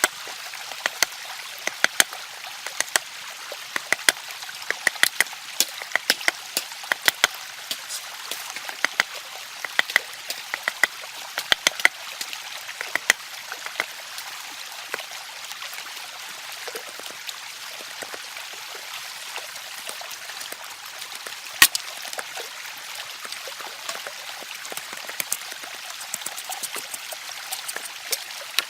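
Stream running with a steady trickling rush. Many short, sharp clicks and taps come at irregular intervals over it, thicker in the first half, with one louder knock a little past the middle.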